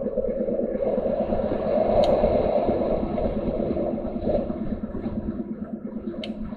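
Inside a lorry cab under way: the diesel engine running steadily with road and tyre noise, and two brief faint clicks.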